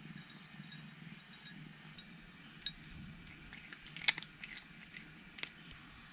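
A cat chewing and crunching food, with scattered crisp crunches, the loudest about four seconds in.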